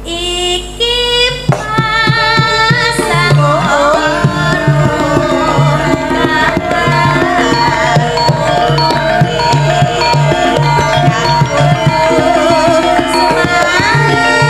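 Javanese gamelan music with kendang drumming, and a sinden (female singer) singing a sung melody over it through a microphone and PA.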